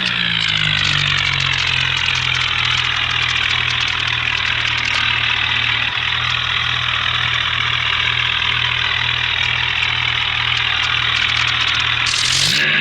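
Vehicle engine dropping from a rev to a steady idle with an even pulsing beat, then revving up again near the end.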